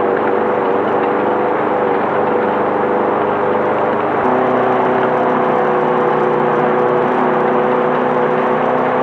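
Class 5/1600 VW Baja Bug's air-cooled flat-four engine running steadily at speed under a constant hiss of road and wind noise. The engine note changes abruptly about four seconds in.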